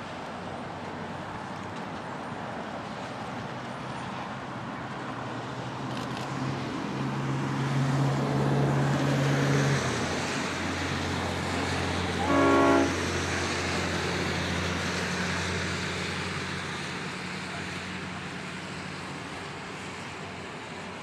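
Approaching diesel freight locomotive running steadily, its engine note stepping lower about ten seconds in. It gives one short horn blast about twelve seconds in.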